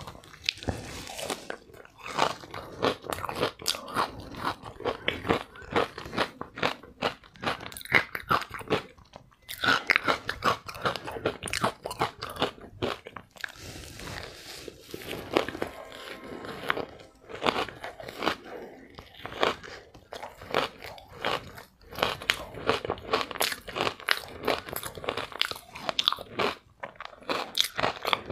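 Close-miked crunching and chewing of ice coated in green powder, with repeated crisp bites and crackling chews and a couple of short pauses between mouthfuls.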